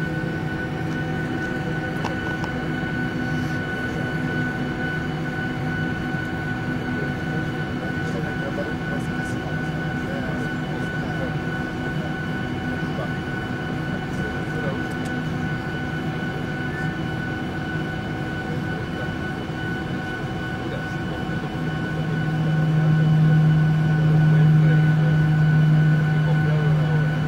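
Boeing 737-800's CFM56 jet engines heard from inside the cabin as the airliner rolls on the ground: a steady hum with a high whine above it, growing louder about 22 seconds in.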